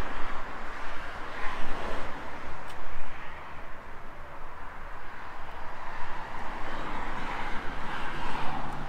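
Road traffic noise: passing vehicles, swelling about a second in and again near the end.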